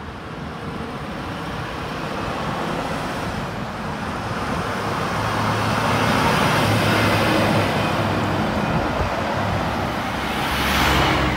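Volvo FH16 750 heavy-haulage truck, with its 16-litre straight-six diesel, pulling a loaded multi-axle low-loader past at low speed: engine and tyre noise build up to a peak as the cab goes by. Near the end the noise swells again as the trailer wheels and a following van roll past.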